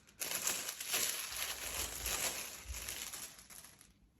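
Crinkling and rustling of packaging as a returned piece of clothing is pulled out and unwrapped: a dense run of small crackles that stops a little before the end.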